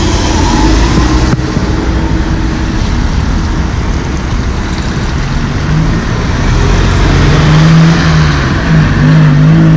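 Motorway traffic: cars passing with a steady rumble of tyres and engines. From about six seconds in, a vehicle engine close by adds a steady hum that grows louder toward the end.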